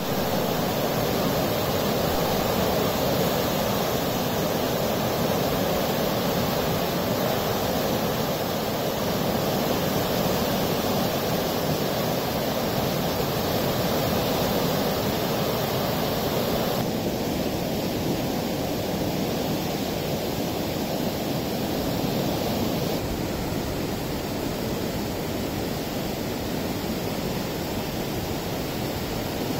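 River in flood, a fast torrent of muddy water rushing steadily with a continuous noise.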